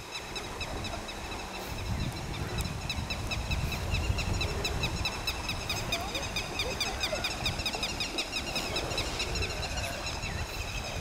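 A high, rhythmic chirping call repeating about five times a second, over an uneven low rumble.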